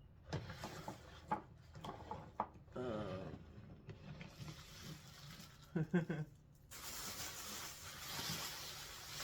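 Plastic dishware being handled, with light clicks and knocks, and two brief voice sounds. About two-thirds of the way in, a steady hiss sets in and runs on.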